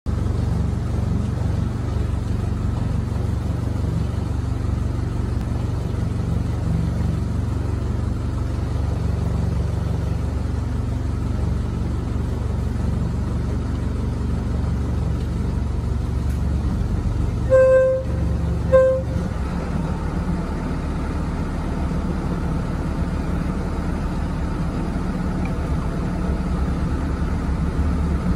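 A launch boat's engine idling with a steady low hum. About two-thirds of the way through, the boat's horn gives two short toots, the first slightly longer, and just after them the engine note changes.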